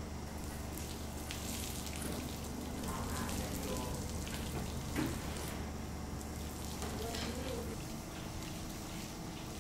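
Water ladled and poured over the skins of whole piglets on spits, splashing and running off, against a steady background hiss and low hum.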